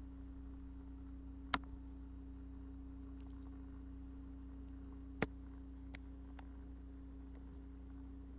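A steady low electrical hum, broken by two sharp clicks about three and a half seconds apart and a few fainter ticks soon after the second.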